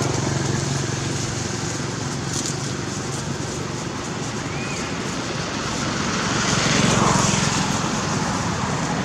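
A motor vehicle's engine running with a steady low hum, growing louder about seven seconds in.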